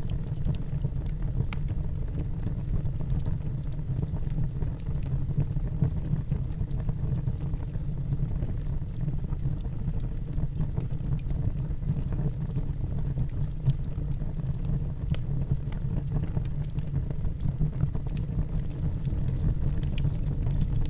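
Wood campfire burning: a steady low rumble with scattered faint crackles and pops.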